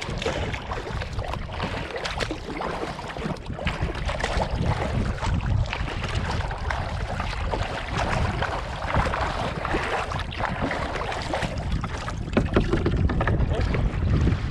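Kayak being paddled: double-bladed paddle strokes splashing and water rushing along the hull, with wind buffeting the microphone in a steady low rumble.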